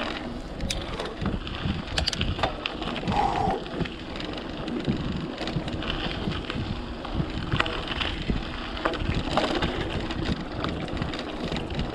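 Mountain bike being ridden along a forest track: steady tyre noise with frequent clicks and rattles from the bike over bumps, and wind on the microphone.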